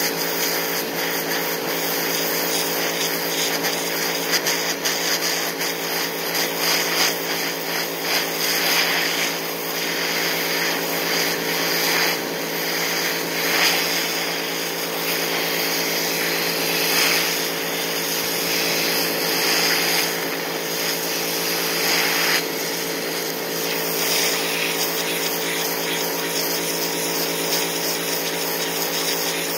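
Electric pressure washer running steadily, its motor and pump humming under the hiss of a 0-degree water jet blasting a deer hide on a wooden board. The hiss swells and fades as the jet is moved over the hide.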